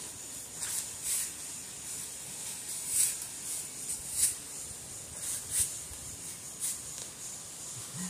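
Short shovel chopping and scraping into dirt, about eight sharp crunches at irregular intervals, the loudest about three and four seconds in.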